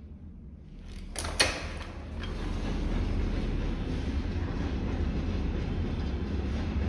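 Passing train heard from close by: after two sharp clicks about a second in, its rumble swells up and holds steady, over a deep low-frequency hum.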